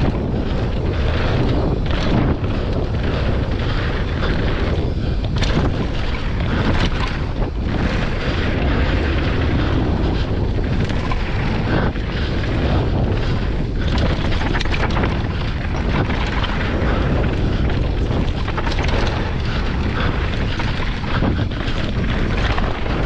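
Yeti SB165 mountain bike descending a dirt trail: wind rumbling on the microphone over the tyres running on dirt, with frequent knocks and rattles from the bike over bumps.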